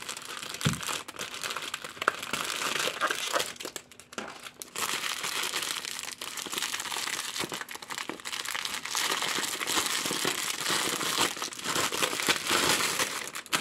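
Foil wrapper of a Kinder Surprise Maxi chocolate egg crinkling as hands grip it and pull at the twisted top to open it, with a brief lull about four seconds in.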